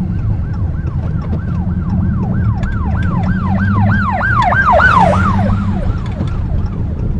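An emergency vehicle's siren on a fast rising-and-falling yelp, about three cycles a second, growing louder to a peak about five seconds in and then cutting off. A steady low engine rumble runs underneath.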